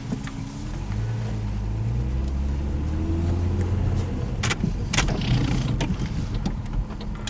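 Car with a Volkswagen VR6 engine driving, a steady low engine hum that rises slightly in pitch about a second in, with two sharp clicks past the middle.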